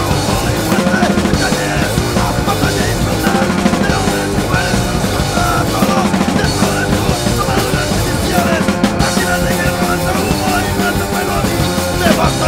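Hardcore punk song recording: the full band playing loud and steady, with drum kit and guitars.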